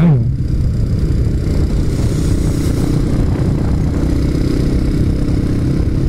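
Motorcycle cruising at a steady speed of about 57 km/h: the engine runs evenly under a heavy, steady low rumble of wind on the microphone.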